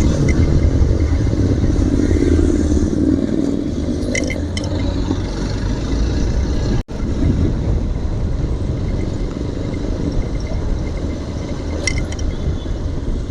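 Royal Enfield Continental GT 650 parallel-twin with an SC Project exhaust running under way, its engine note over heavy wind rumble on the phone microphone. The sound drops out for an instant about seven seconds in.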